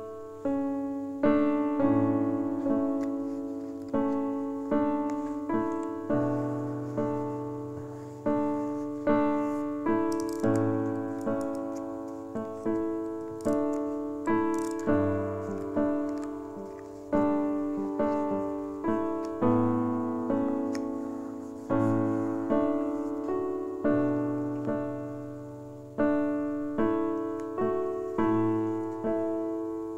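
Background piano music: a slow, gentle run of single notes and chords, each struck and left to fade.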